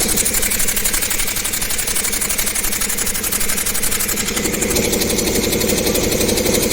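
A 7.5 hp borewell air compressor running steadily, with a fast, even pulsing beat. A lower hum drops away just after the start and returns about two thirds of the way through.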